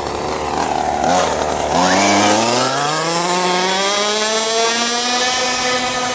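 Small high-revving remote-control car engine, its buzzing pitch climbing steadily over a few seconds as it accelerates, then holding level.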